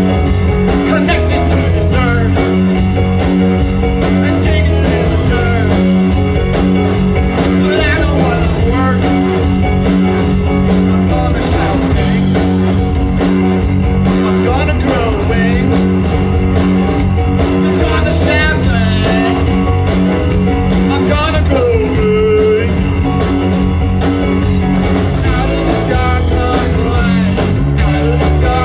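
Live rock band playing at full volume: electric guitar, electric bass, keyboard and a drum kit keeping a steady beat.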